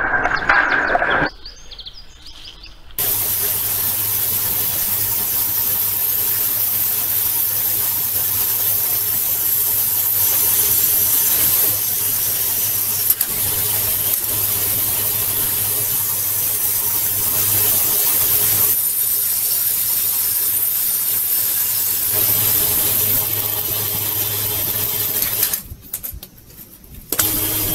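Portable generator running steadily: a low hum under a steady hiss. The sound drops away briefly twice, near the start and near the end.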